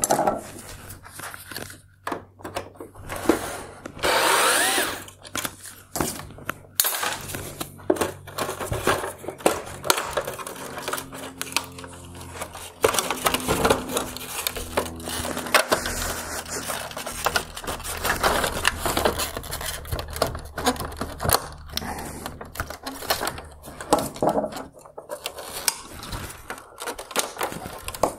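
Hard plastic clicking, creaking and scraping as chrome trim is worked loose from a Mercedes-Benz S-Class LED headlight housing. There is a louder rasping scrape about four seconds in, over a faint steady low hum.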